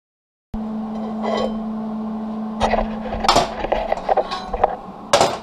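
Heavy steel parts of a welded bracket clinking and knocking against each other and the steel welding table as they are handled, several separate strikes with the loudest near the end, over a steady low hum. The sound starts after about half a second of silence.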